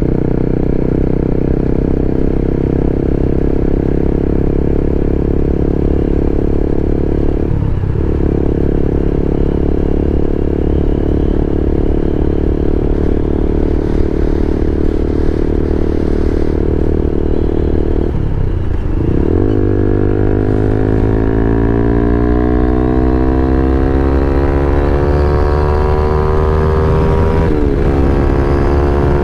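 Motorcycle engine under way, heard from the rider's seat: a steady running note that dips briefly about a quarter of the way in. About two-thirds in the note drops again, then climbs steadily as the bike accelerates, with another short dip near the end.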